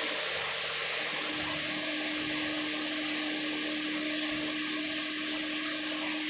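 Steady whooshing noise of a motor-driven blower with a constant low hum, unchanging in level.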